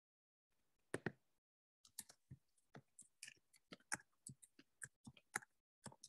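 Faint, irregular clicks and taps picked up over a video call, two sharper clicks about a second in and a run of smaller ones after.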